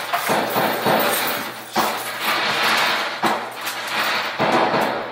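Recorded gunfire played loud through a Bluetooth speaker: repeated sharp bangs with a rush of noise between them.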